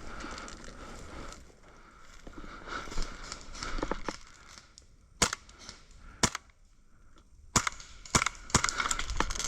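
Airsoft gun firing single shots: several sharp cracks at irregular intervals, the loudest five coming in the second half.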